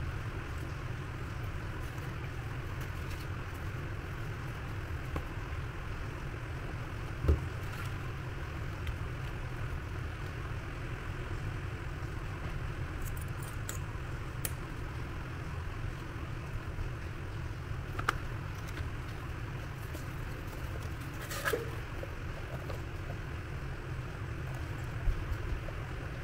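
Steady low background hum with a few light clicks and taps scattered through it.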